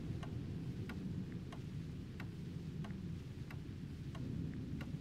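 A clock ticking at an even pace, louder ticks about every two-thirds of a second with fainter ones between, over a low hum of room noise.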